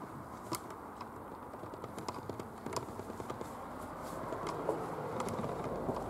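Footsteps on a stony path: irregular scuffs and clicks over a steady low rush of noise.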